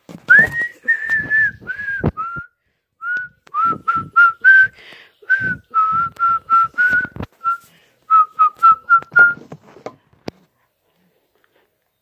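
A person whistling a tune with pursed lips: a few longer, sliding notes first, then a run of short notes around the same pitch, stopping about nine and a half seconds in.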